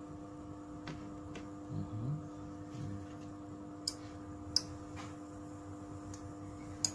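Relay on a two-channel Wi-Fi smart switch module clicking as it switches on and off in inching mode, about eight sharp clicks at uneven spacing. A steady low hum runs underneath.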